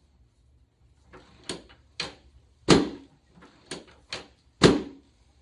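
About six sharp knocks and thuds from a chiropractic adjustment on a treatment table, coming irregularly over three and a half seconds; the two heaviest thuds fall about halfway through and near the end.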